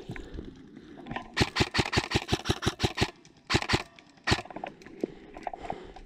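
Airsoft gun firing on full auto: a rapid burst of about a dozen shots, about seven a second, then a short burst of three and a single shot.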